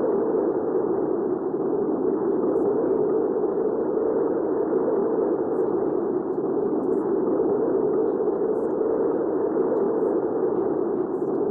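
Hurricane wind ambiance: a steady, deep rushing noise with no gusts and no high end.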